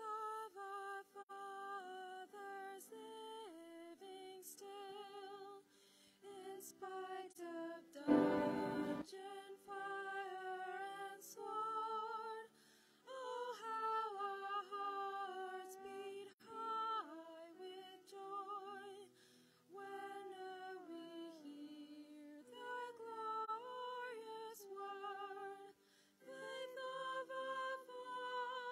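A singer's voice with vibrato singing a slow hymn melody, the phrases breaking off every few seconds. About eight seconds in, a brief loud noise cuts across the singing.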